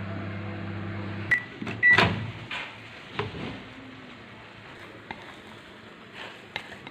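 LG microwave oven running with a steady hum that stops about a second in. Two short high beeps follow, then a loud clack as the door is opened, then a few light knocks of dishes.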